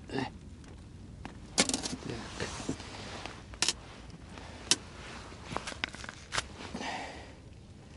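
Irregular sharp clicks and knocks of ice-fishing tackle being handled after a fish is landed, about ten in all, with a short rustle near the end.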